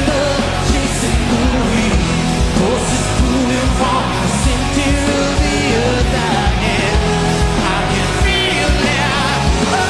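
Rock music at full band with drums and a wavering sung vocal line without clear words.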